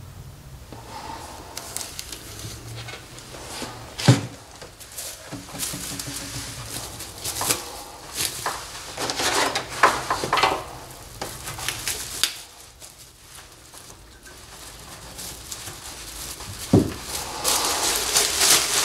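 Plastic rustling and crinkling as a trash bag and plastic wrap are handled around a fuel tank's filler neck, with a sharp knock about four seconds in and another near the end.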